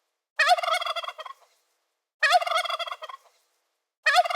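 Male turkey gobbling: three rapid, warbling gobbles, each about a second long and about two seconds apart.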